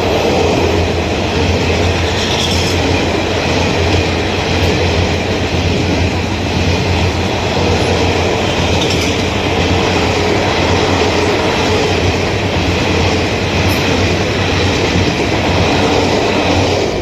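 An Indian Railways passenger train passing at speed close by on the adjacent track: a loud, steady rush of wheels on rails and coaches going by.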